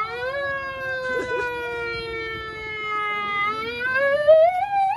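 Siren wailing: one steady, penetrating tone that sinks slowly in pitch for about three seconds, then climbs steeply near the end.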